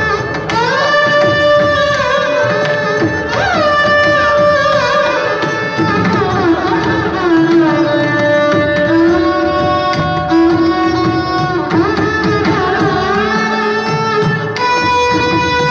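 Carnatic violin duet playing a melody with sliding, curving ornaments over steady mridangam drumming.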